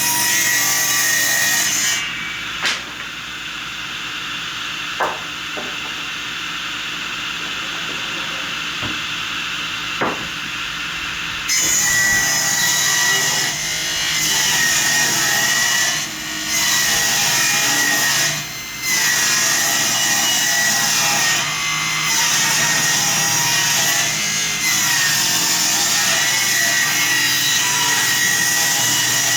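Power saw cutting wood: a steady high motor whine with loud cutting noise. For a stretch in the first third it runs quieter with a few sharp knocks, then the loud cutting resumes with two brief dips.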